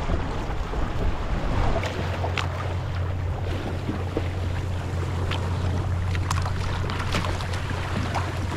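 Water rushing and splashing along the hull of a 14 ft Welsford Navigator sailing dinghy under way in choppy water, with sharp splashes every second or so. Wind rumbles steadily on the microphone.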